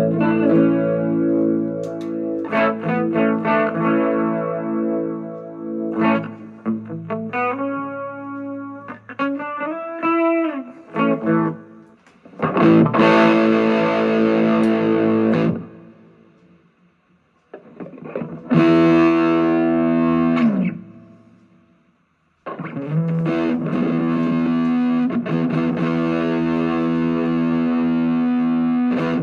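Electric guitar (Epiphone SG Special) played through a Zoom G1Four multi-effects pedal and a Vox MV50AC amp into a homemade wine-box speaker cabinet with a distorted tone. It starts with ringing chords and a few bent notes, then plays loud chord stabs separated by short pauses, including a chord sliding down in pitch. It ends on a long held chord.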